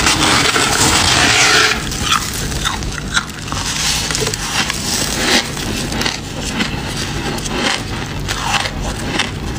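Soft freezer frost being bitten and chewed close to the mouth: a loud rushing crunch for about the first two seconds, then a run of small crisp crunches and crackles.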